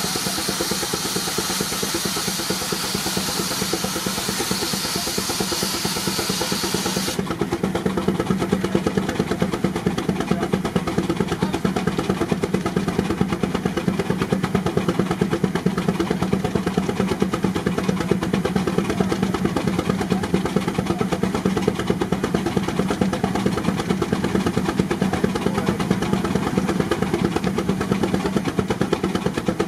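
Baker Uniflow steam traction engine running steadily under load, belted to a Prony brake for a horsepower test, with a rapid, even exhaust beat. A high hiss over it cuts off suddenly about seven seconds in.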